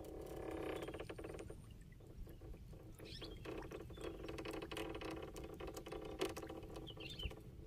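Faint, irregular patter of drips and small clicks as a traditional anco lift net is raised from the water.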